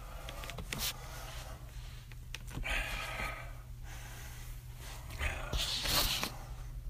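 A person's breaths or sniffs close to the microphone, two of them, with a click near the start, over a steady low hum in a small room.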